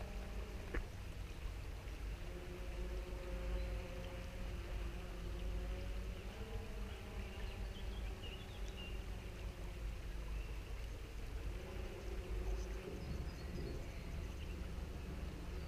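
Outdoor ambience: wind rumbling on the microphone, with a faint hum that wavers in pitch and a few faint bird chirps about halfway through and near the end.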